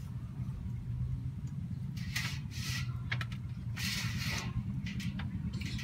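A steady low hum, with brief hissing bursts and a few sharp crackles from an open wood fire grilling rats.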